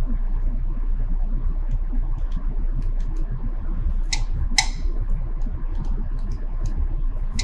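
Steady low machine hum. Faint light ticks sound here and there, and two sharp clicks come half a second apart about four seconds in.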